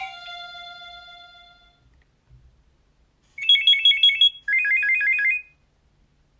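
Nokia 6230i mobile phone tones: the last notes of a polyphonic ringtone ring out and fade over about two seconds. After a short pause, a brief alert tone plays as two quick trills of high beeps, the second a little lower than the first.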